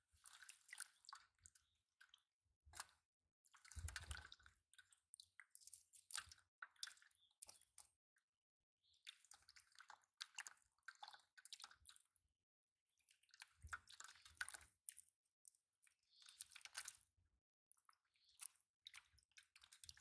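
Faint, irregular wet splashes and squelches in short bursts, with a couple of low thuds.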